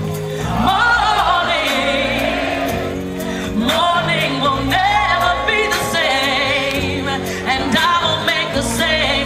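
House music with a soulful, gospel-style vocal line over held bass notes, playing loud.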